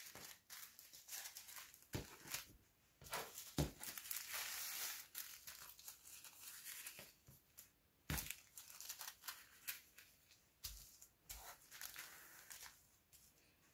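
Faint crinkling of small plastic zip-lock bags of acrylic diamond-painting drills as they are handled and laid down, with a few sharp taps.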